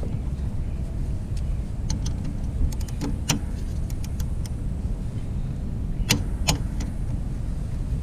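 A 3/8-inch drive wrench with a 5 mm hex socket tightening a front brake pad pin on a motorcycle caliper: light metal clinks as the tool is worked, then two sharp clicks about six seconds in. A steady low rumble runs underneath.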